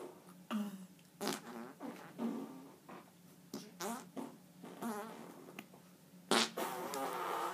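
Armpit farts: a hand pumped against an armpit makes a series of short fart noises, then a longer, louder one about six seconds in.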